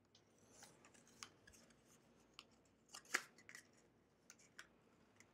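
Faint clicks and rustles of stiff white card being handled and folded, with one sharper snap about three seconds in.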